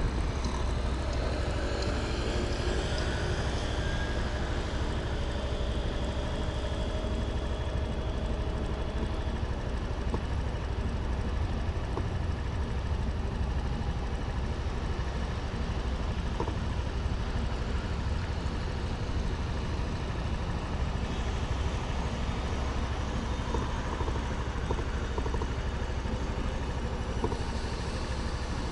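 Suzuki Address 125 scooter's single-cylinder engine idling steadily at a standstill, with a constant low rumble.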